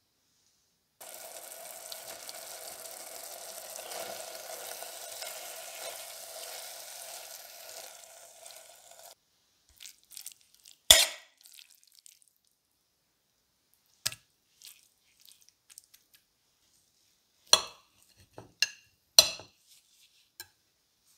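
Sauerkraut sizzling in a stainless steel pot on an electric hotplate for about eight seconds, stopping abruptly. Then a loud clink of the pot against a ceramic plate as it is tipped out, and a few sharp clinks of a knife and fork on the plate near the end.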